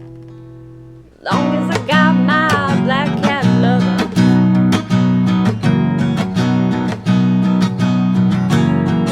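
Acoustic guitar in an instrumental break of a blues song: a held chord fades out, then just over a second in the guitar comes back loud, strummed in a steady rhythm with a few notes bent up and down.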